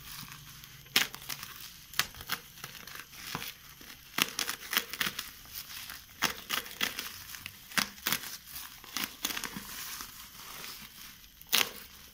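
Plastic bubble-wrap packaging crinkling and crackling as a utility knife slits it and hands pull it apart, in irregular sharp crackles.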